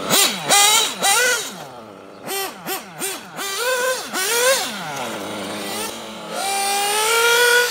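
Kyosho Inferno MP9 1/8-scale nitro buggy's Reds R5R two-stroke glow engine revving hard in a string of quick throttle blasts, the pitch shooting up and dropping off each time, then held for a long high-speed run with the pitch climbing slowly near the end.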